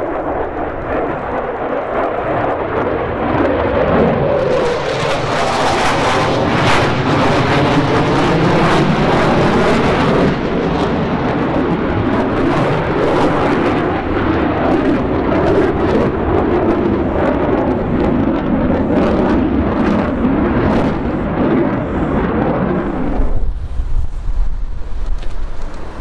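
F-15 Eagle twin-engine fighter jet flying past overhead: a loud jet roar with a crackling edge, its tone sweeping as the jet passes. Near the end the higher part of the roar drops away abruptly, leaving a low rumble.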